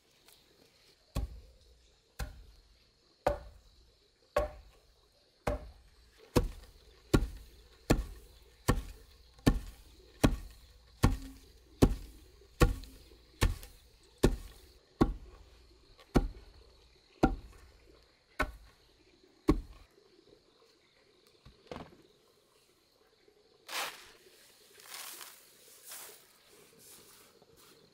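Wooden pestle pounding unhulled rice in a hollowed-log wooden mortar: about twenty dull, regular thuds, a little faster as they go, stopping about two-thirds of the way in. Near the end, the pounded rice and husks are poured out of the mortar with a brief rushing hiss into a woven bamboo tray.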